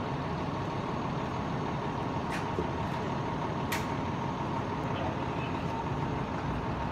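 A vehicle engine idling steadily, with a thin steady whine over its low rumble. Two sharp clicks about a second and a half apart come midway, the second the louder.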